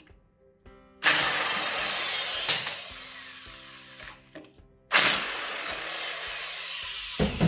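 Hand-held power wrench run in two long bursts, each about three seconds, loosening the bolts on a screw compressor's slide-system housing, with background music underneath.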